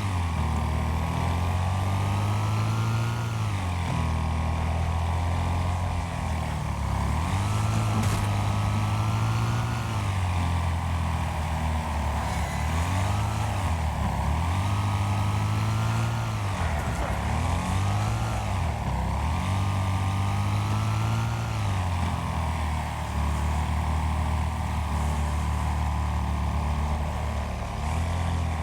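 Racing lawn mower engines running hard, their pitch rising and falling every few seconds as they speed up and slow down.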